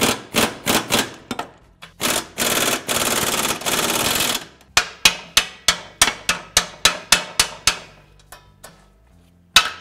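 Half-inch air impact gun hammering on rusted 14 mm exhaust flange nuts to break them loose. It comes in rapid short bursts, about three or four a second, with one longer unbroken run of about two and a half seconds in the middle, then a single sharp click near the end.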